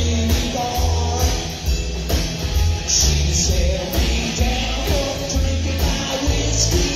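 Live rock and roll band playing: an upright bass walks a steady bass line under a drum kit's beat and ticking cymbals, with an electric guitar on top.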